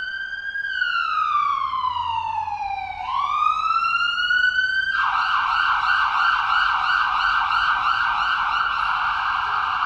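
Electronic ambulance siren: one slow wail falling and rising in pitch, then switching about five seconds in to a rapid warble.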